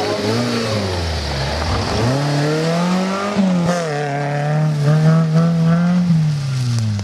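Off-road 4x4's engine revving up and down under load: the revs drop, climb about two seconds in, hold high for a few seconds and fall away near the end.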